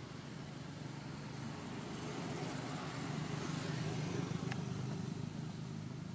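A motor vehicle's engine rumbling, growing louder through the middle and easing off toward the end, with one short click partway through.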